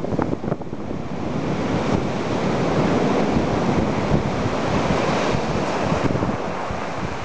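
Surf washing up on a beach in one long swell that builds and then eases off, with wind buffeting the microphone.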